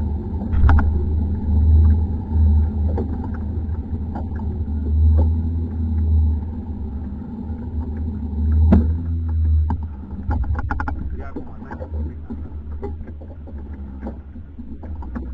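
Fishing boat at sea with an uneven low rumble throughout. A faint high steady whine stops about ten seconds in, and then come clicks, taps and small splashes as the fish on the line are brought up to the side of the boat.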